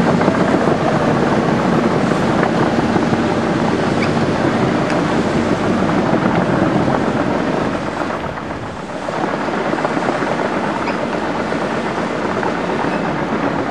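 Heavy diesel machinery running steadily, with a low engine hum in the first few seconds and wind on the microphone. The sound eases briefly about eight seconds in.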